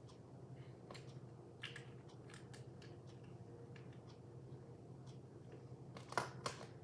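Light, scattered clicks and taps of small plastic parts being handled, with a sharper pair of clicks about six seconds in.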